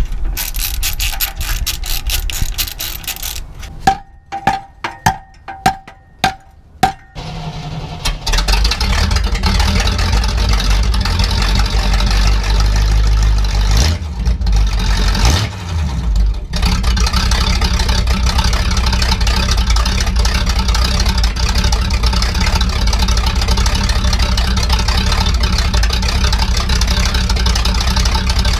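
A socket ratchet clicks rapidly on the exhaust clamps, then comes a handful of sharp clicks. The 1956 Chevrolet Bel Air's V8 then starts and runs with its mufflers removed, pretty loud and steady, with a brief change in revs about halfway through.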